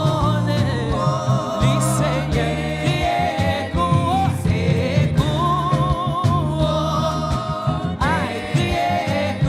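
Gospel praise-and-worship song: voices singing long wavering notes over steady instrumental accompaniment with a regular beat.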